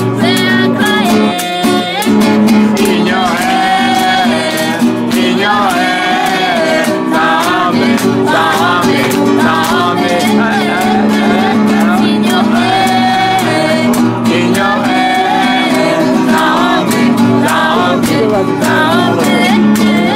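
Acoustic guitar strummed to accompany singing, with a sung melody over the chords throughout.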